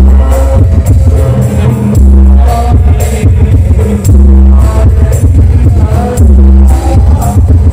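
Live hadroh music: Islamic frame drums (rebana) beating a dense rhythm, with the hadroh bass drum amplified through a bass module and sound system. The bass comes as a long, deep boom about every two seconds.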